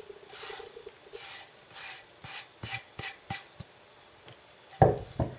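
A hand scraping chopped parsley off a wooden chopping board into a glass mixing bowl: soft, repeated rubbing swishes, then a few light taps, and a couple of louder knocks near the end.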